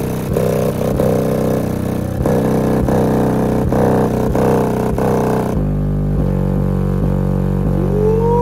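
Kicker Q-Class L7 10-inch square subwoofer playing a bass-heavy track in free air, with no enclosure, its cone at large excursion. Rapid pulsing bass notes give way about five and a half seconds in to a sustained low note, and a tone glides upward near the end.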